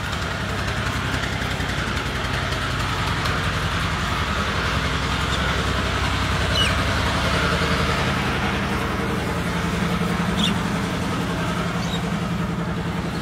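A low, steady engine drone that runs unchanged throughout, with a few brief high chirps over it.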